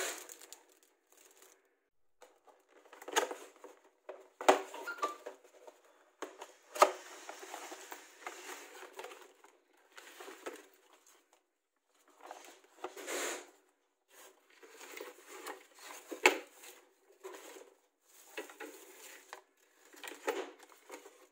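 Paper and wood-shaving packing filler rustling and crinkling in irregular bursts as a kit is unpacked by hand. Several sharp knocks come from thin laser-cut plywood pieces being handled.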